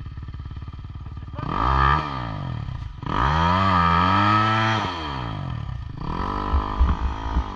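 Dirt bike engines idling, with one revved hard in surges: a short rev about a second and a half in, a longer one from about three to five seconds, and a smaller one near the end, each climbing in pitch and falling back.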